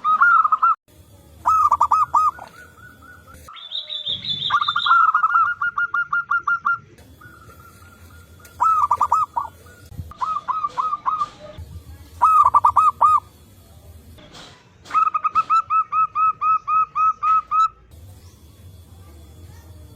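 Zebra doves (perkutut) calling: bouts of rapid, evenly repeated cooing notes, several in turn with short pauses between them.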